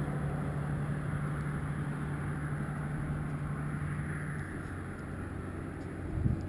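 Steady motor-vehicle engine noise with a low hum that stops about two-thirds of the way through.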